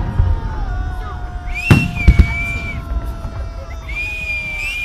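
Fireworks display: two shell bursts go off about two seconds in, half a second apart, over a low rumble. Long held high-pitched tones run over them.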